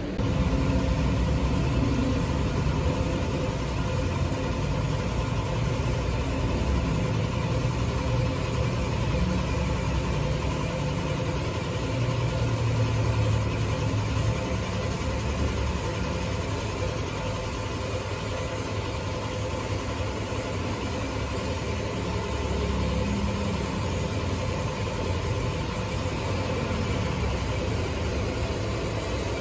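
Steady mechanical running of the motor that spins an alloy wheel on its stand, with the hiss of an air spray gun painting the turning wheel.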